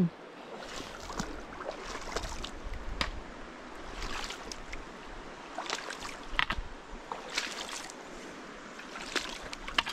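Steady rush of flowing river water, with scattered scrapes and knocks of footsteps on rocky slate ground.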